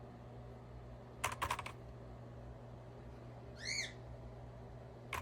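Short bursts of typing on a Keychron C2 mechanical keyboard with Keychron Brown switches: a quick run of five or six keystrokes a little over a second in and another starting at the very end. Between them, at about three and a half seconds, a single short high chirp rises and falls once.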